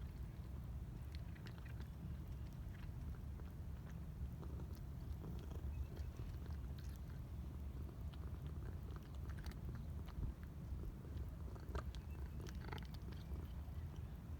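A cat eating, with small irregular crunching clicks over a steady low rumble.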